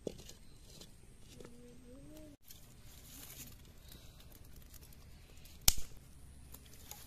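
Clay cooking pot set down on a brick wood-fire stove with a light knock at the start, then a short low wavering call about a second and a half in. Near the end comes one sharp crack, the loudest sound, as firewood is pushed into the fire.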